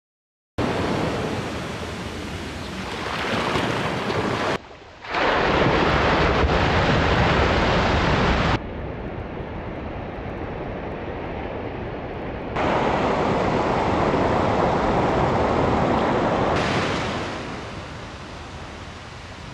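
Small surf washing onto a sandy beach, with wind buffeting the microphone. The steady rush changes abruptly in level several times, dipping briefly about four and a half seconds in.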